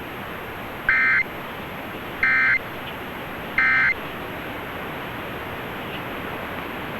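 Three short bursts of EAS end-of-message data tones, about 1.3 seconds apart, received over AM radio. This is the digital SAME code that closes a Required Monthly Test. It is followed by steady AM static hiss.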